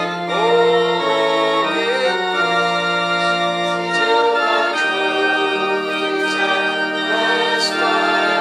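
Organ music: slow, sustained chords that change every second or two, with a wavering melody line above.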